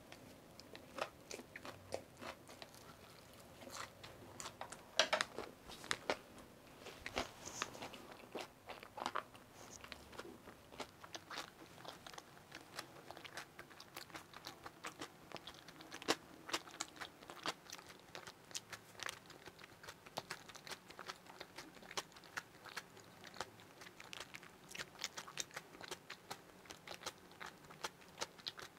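Close-miked chewing of a Korean chive pancake (buchimgeon): slow, steady mastication with many small, irregular clicks from the mouth and teeth.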